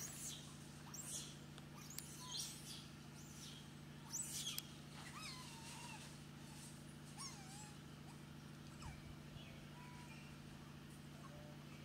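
Faint animal calls: short high chirps in the first few seconds, then a few thin squeaks that rise and fall in pitch, over a steady low hum.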